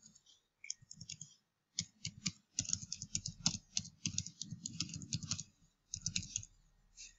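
Computer keyboard typing: quick runs of key clicks with short pauses, densest in the middle.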